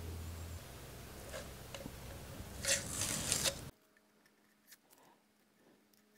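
Wrench turning the nut on a chain grinder's grinding wheel: a few light metal clicks and a short scraping rasp about three seconds in, then the sound cuts off suddenly to near silence.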